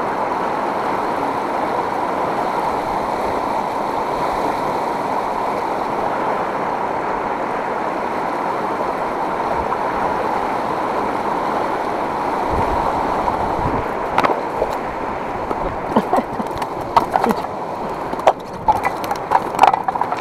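Fast-flowing water of the Umba river rushing steadily over stones. In the last few seconds a scatter of sharp clicks and knocks rises above the water noise.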